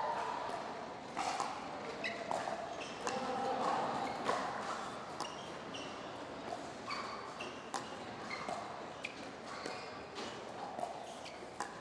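Pickleball dink rally: paddles popping the plastic ball at uneven intervals of about a second, with short high squeaks of court shoes and a low crowd murmur in a large hall.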